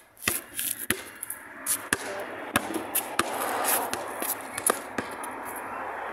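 A basketball bouncing on asphalt, giving sharp, irregularly spaced thuds as it is dribbled. A steady rushing noise swells up behind the bounces from about two seconds in.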